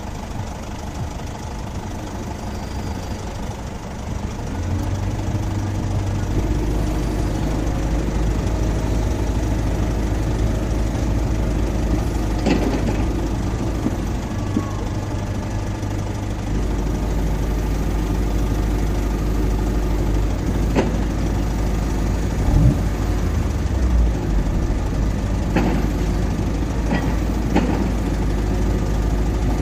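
Low steady hum of idling vehicle engines waiting at the closed crossing. The hum grows louder about five seconds in, and a few short knocks come in the second half.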